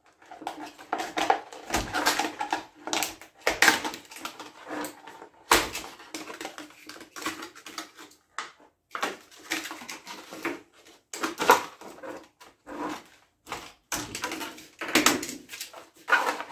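Stiff, heat-shrunk PET bottle plastic crinkling and crackling as it is handled and cut, a run of irregular crackles and clicks.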